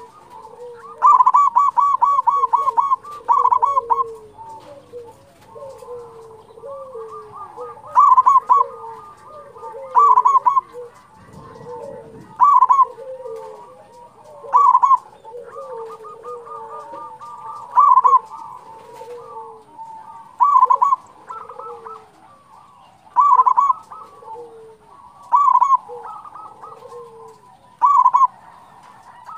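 Local zebra dove (perkutut) singing in full voice: a rapid run of staccato cooing notes near the start, then a short burst of quick coos every two to three seconds. A softer, lower-pitched call repeats in between.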